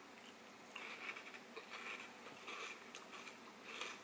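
Faint, wet mouth sounds of someone sucking on and eating an ice popsicle, coming in short irregular spells from about a second in.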